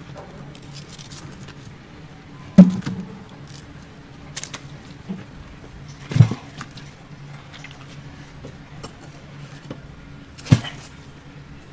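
Three heavy thuds, roughly four seconds apart, from a giant sunfish being butchered, with lighter knocks and scrapes between them over a steady low hum.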